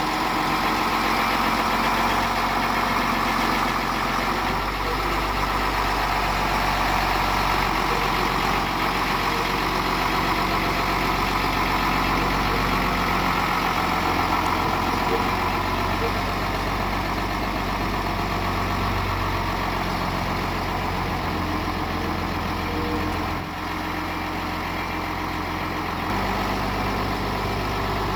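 Diesel engine of a shunting truck running steadily while it moves an illuminated tram around the depot yard; its note steps up and down a few times.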